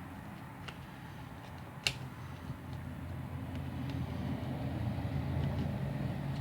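Thin plastic pry card clicking and scraping faintly as it is worked under a smartphone battery to cut the adhesive, with one sharp click about two seconds in, over a steady low hum.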